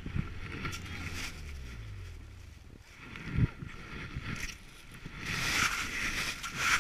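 Snowmobile engine revs falling away as the sled buries itself in deep powder. A single thump about three and a half seconds in, then a rushing noise near the end.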